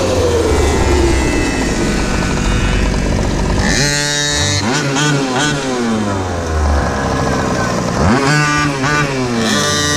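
Small engine of a GoPed GoQuad slowing, its pitch falling over the first few seconds. From about four seconds in it is revved in repeated blips, rising and falling several times.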